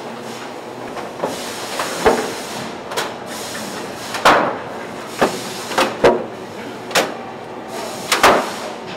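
Fish processing line machinery running with a steady hum, punctuated by irregular sharp clacks and knocks from the conveyors and their chutes and trays, about one a second.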